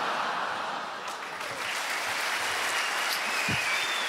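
A large theatre audience applauding steadily, a sustained round of clapping that greets a comedian's punchline.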